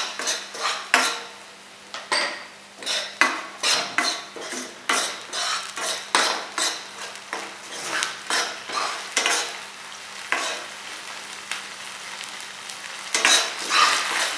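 Steel ladle scraping and stirring in a stainless steel frying pan as a sauce-coated onion, garlic and chilli mix sizzles in hot oil. The strokes come about two a second, ease off for a few seconds, then come back loud near the end.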